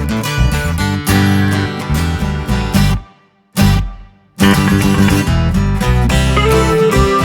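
Background music led by guitar with a steady beat. It breaks off about three seconds in, with one short hit in the gap, and starts again about a second and a half later.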